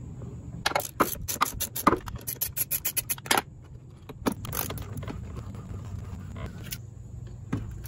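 T30 Torx driver working the screws that hold the steering-wheel airbag on: a rapid run of clicks for about three seconds, then a few more clicks.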